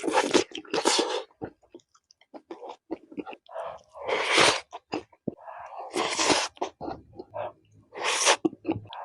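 Close-miked mouth sounds of a person eating: chewing with many small wet clicks and smacks, broken by about five louder, hissy bursts of crunching or breath.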